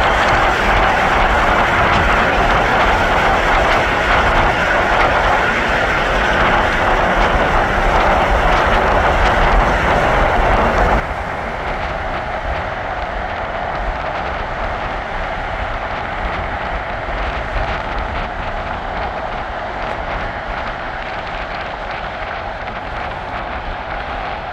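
Steady road and wind noise of a moving car, heard from inside the car. It is louder in the first part and drops abruptly to a quieter steady road noise about eleven seconds in.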